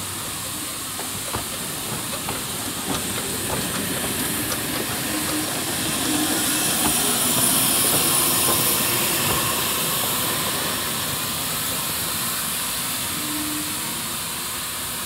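Narrow-gauge Garratt steam locomotive No. 87 passing slowly and close, hissing steam, with a few sharp clicks in the first few seconds. The hiss swells to its loudest about halfway as the cab and boiler go by, then eases off.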